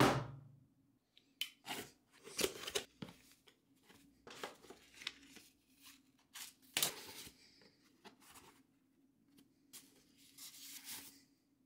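Cardboard box and paper packaging being handled: a knock as the box is set down on the wooden table, then irregular rustling and crinkling of paper leaflets, cardboard flaps and wrapping being opened and pulled out.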